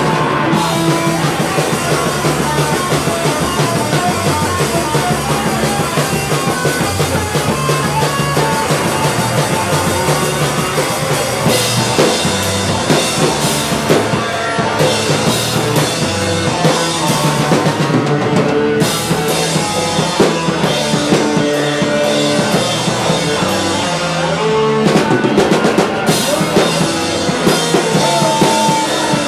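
Live rock band playing loudly, with the drum kit up front: bass drum, snare and cymbals over the band.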